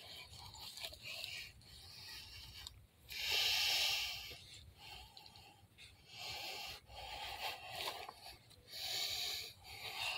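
Heavy, rough breaths and snorts through a silicone mask, in a series of loud bursts about a second long each, the loudest about three seconds in.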